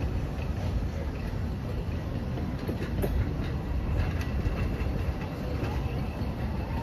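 Open-air wooden passenger cars of a narrow-gauge steam railroad rolling past: a steady low rumble of wheels on rail, with a few faint clicks about midway through.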